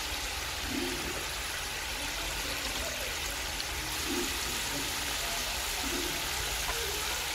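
Whole amla (Indian gooseberries) bubbling and sizzling in hot mustard oil in an aluminium karahi, a steady hiss.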